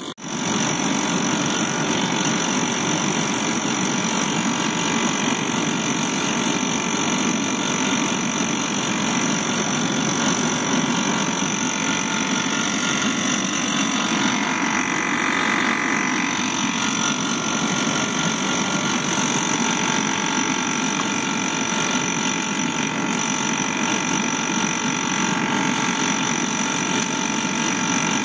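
Homemade waste-oil furnace burner running hard: a steady rush of flame and forced air, with a constant whine from the air blower feeding it.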